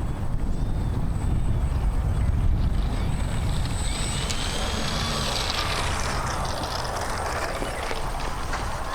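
Large radio-controlled glider whooshing through the air: a steady rushing noise, with faint whistles that rise and fall in pitch from about three seconds in.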